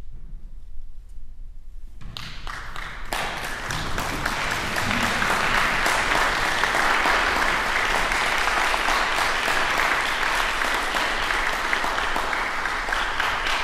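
Audience applauding: after a brief hush, clapping starts about two seconds in and quickly swells into steady, dense applause.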